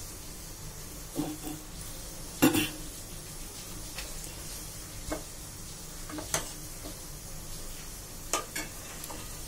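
A steel ladle stirring thick dal in a stainless steel pot, with scattered metal-on-metal clinks and scrapes against the pot. The loudest clink comes about two and a half seconds in.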